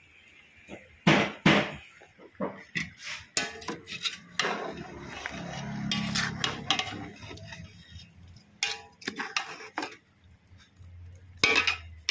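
A spoon knocking and scraping against a cooking pot while stirring octopus adobo: a run of irregular clinks and clatters.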